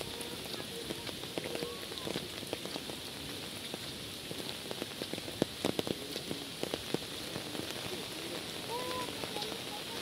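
Heavy rain falling steadily on foliage, roofs and a waterlogged mud path, with sharp drops and taps that come thickest about halfway through. A few faint calls sound in the background near the end.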